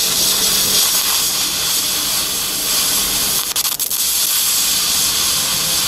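Oxyhydrogen (HHO) gas thinned with air hissing steadily out of a torch nozzle onto a glowing catalyst, unlit: the added air keeps the gas from bursting into flame. Just past halfway the hiss briefly falters with a couple of clicks.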